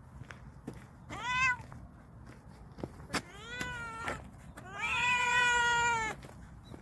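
Stray cat meowing three times: a short call, then a longer one, then a long drawn-out meow that is the loudest. A few sharp clicks come between the calls.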